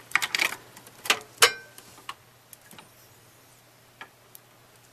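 Clicks and knocks of a SATA power cable's plastic plug being handled against a computer case. The loudest comes about one and a half seconds in with a brief metallic ring, and a few faint ticks follow.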